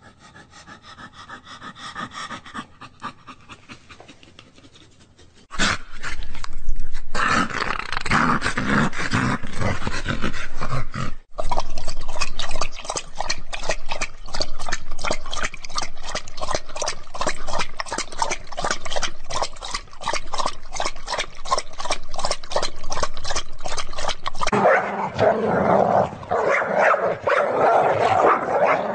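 A dog panting in quick, even breaths, much louder from about five seconds in, turning to a lower, rougher growl near the end.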